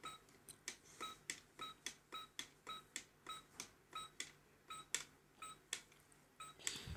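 Funny Juicer toy juice machine running, giving a rapid, even ticking with short beep-like tones, about three to four ticks a second.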